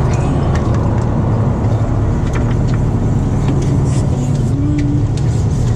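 Fishing boat's engine running with a steady low rumble, with a few faint clicks and knocks over it.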